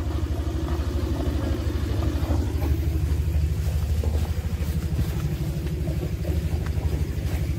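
Small boat's engine running steadily with a rapid, even throb.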